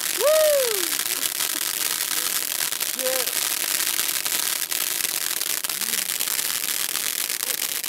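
Firework burning in a bonfire: a steady crackling hiss thick with tiny pops. A brief shout near the start and another about three seconds in.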